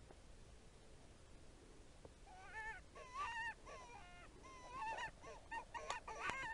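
Coyotes yipping and howling in a group: many short, high calls that bend up and down in pitch. They start a couple of seconds in and grow busier and louder towards the end.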